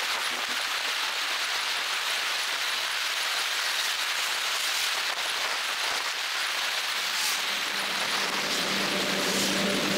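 Steady rushing wind and road noise on the microphone of a camera mounted on a moving road bike. About seven seconds in, a low steady hum with overtones joins it.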